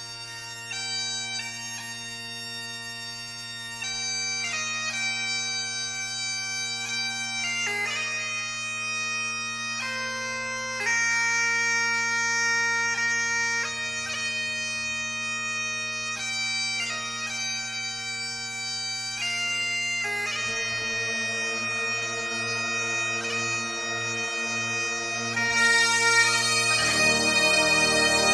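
Bagpipe music: a tune played over steady, unchanging drones. The sound thickens about twenty seconds in and swells louder near the end as a low bass comes in.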